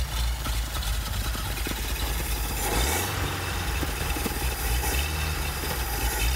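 Packard 356 nine-main-bearing flathead straight-eight engine running cold just after starting, its throttle worked by hand at the carburetor to keep it from stalling.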